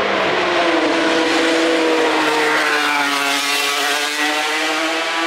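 Racing motorcycle engine at high revs, passing at speed, its pitch dipping and rising as it goes by.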